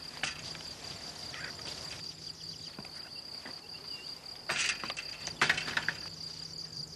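Crickets chirping in a steady high-pitched chorus, with a few short rustling clicks a little past the middle.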